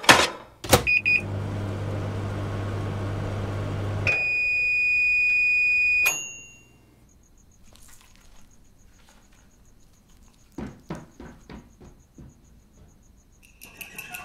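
Microwave oven: a clunk or two as it is shut and started, a short keypad beep, a steady hum while it runs for about three seconds, then a loud long beep lasting about two seconds when it finishes. Afterwards it is quiet except for a few faint crunchy bites of food.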